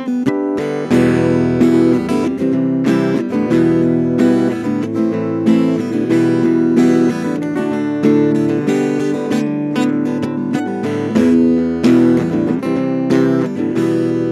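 Acoustic guitar strummed in a steady rhythm, the instrumental break of a blues song.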